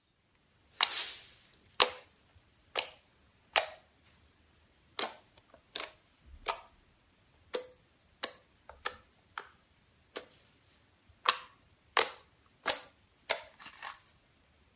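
Slime being squeezed and worked by hand, giving sharp irregular pops and clicks about once a second as trapped air bursts out.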